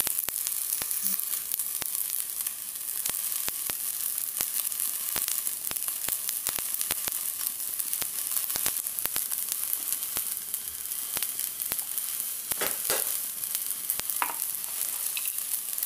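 Rice and mixed vegetables frying in a nonstick wok: a steady sizzling hiss with frequent small crackling pops, and two louder short sounds near the end.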